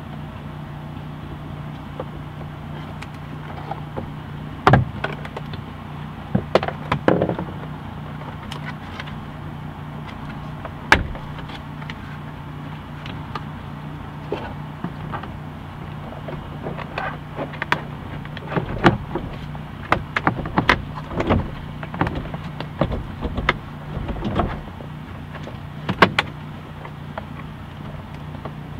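Irregular clicks, knocks and plastic rattles as the interior trim pieces of a minivan sliding door are pried and handled, with a few sharp snaps standing out. A steady low hum runs underneath.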